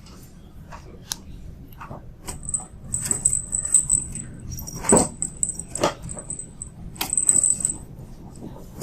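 Kittens moving about, with a small high-pitched jingling in several short spells and scattered light taps.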